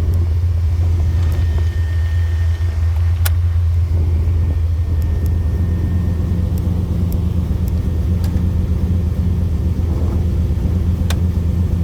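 Chevrolet 383 stroker V8 running steadily at idle through headers and dual exhaust, a deep, even hum, with a few light clicks.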